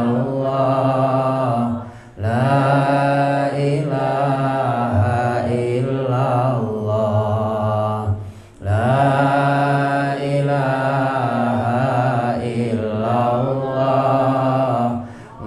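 A man's solo voice chanting a slow Islamic devotional melody into a handheld microphone, in long, drawn-out wavering notes with short breaths about 2 seconds and 8 seconds in and near the end.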